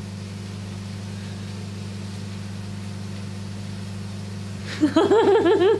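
Steady low electrical hum, with a voice starting to speak near the end.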